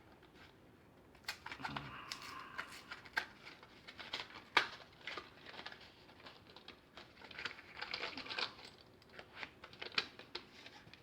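A box of .223 Remington FMJ rifle cartridges being opened and handled: irregular clicks and taps with rustling of the packaging.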